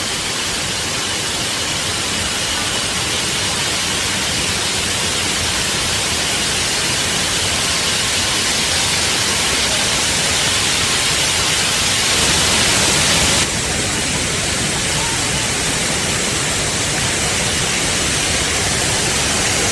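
Shiraito Falls: water falling in many thin streams down a rock face, a steady loud rush. The level drops suddenly about two-thirds of the way through.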